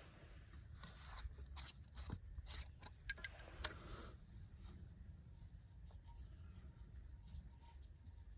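Faint clicks and rustles of plumbing parts being handled, with a few sharper clicks in the first four seconds, over a low steady rumble.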